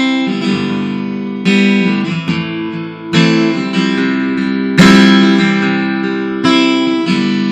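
Acoustic guitar playing a song's intro: full chords strummed about every second and a half, each left to ring and fade before the next.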